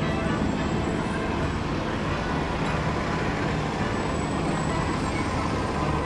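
Steady rumble of engines and traffic with no distinct events.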